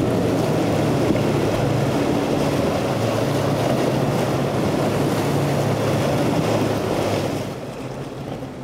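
Triple outboard motors of a center-console boat running hard through rough inlet chop, a steady engine drone under the rush and splash of spray and waves, with wind on the microphone. The sound drops to a quieter, more distant engine and water noise near the end.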